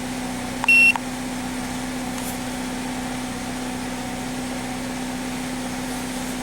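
Chevy Cobalt's 2.2L Ecotec four-cylinder idling with a steady hum. A short, high electronic beep from the diagnostic scan tool comes about three-quarters of a second in.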